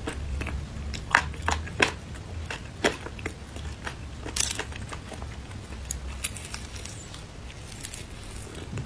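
Close-miked eating sounds of a person picking at and eating crispy fried chicken: irregular sharp clicks, crackles and mouth smacks, the loudest cluster about a second in and another near the middle, over a steady low hum.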